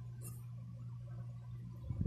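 Steady low hum with one brief rustle of the paper fold-out CD insert being handled, about a quarter second in.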